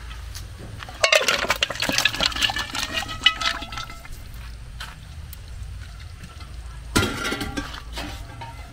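Palm-nut soup stock pouring from one aluminium pot into another, with the aluminium pots clinking and scraping against each other and ringing, densest from about a second in and again in one sharp knock near the end.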